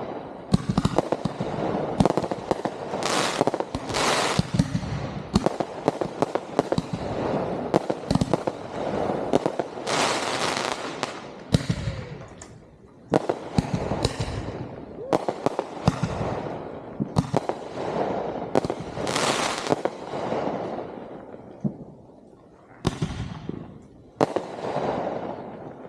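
Consumer (1.4G) fireworks going off in rapid succession: many sharp bangs and booms packed close together, easing off briefly about halfway through and again near the end.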